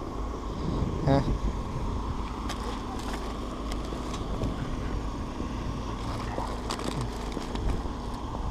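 Steady low outdoor rumble with scattered light clicks and rattles from a loaded wire shopping trolley as items in it are handled, and a brief voice sound about a second in.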